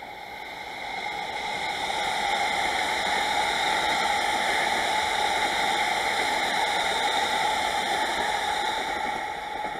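JR West 225-100 series eight-car electric multiple unit passing on the main line: a steady rush of wheel and rail noise that swells over the first two seconds, holds, and fades away near the end as the train clears.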